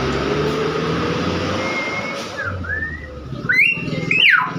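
Nias hill myna giving a few short whistles, the two loudest near the end sweeping sharply upward, over a steady low rumble.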